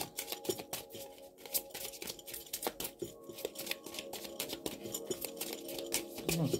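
A deck of cards being shuffled by hand: a fast, uneven run of light card clicks and slaps. Soft background music with steady held notes plays underneath.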